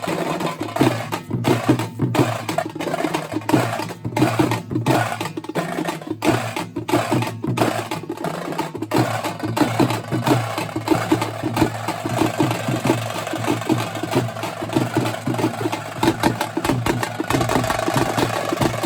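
Karnataka folk drums, tamte and dollu, beaten with sticks in a fast, steady, driving rhythm of dense strikes.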